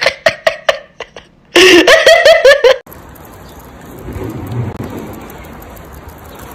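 A person's loud, startled yelps and laughter in quick bursts, then a longer shriek, all very loud. About three seconds in it cuts off suddenly to a steady hiss of outdoor background noise.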